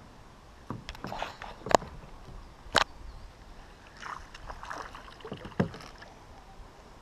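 Sharp knocks on a plastic kayak hull, twice in quick succession, then a hooked smallmouth bass splashing at the surface about four seconds in as it is reeled toward the kayak, with another knock shortly after.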